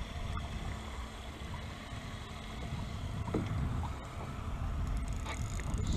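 Steady low wind rumble on the microphone out on open water, with a couple of faint brief taps.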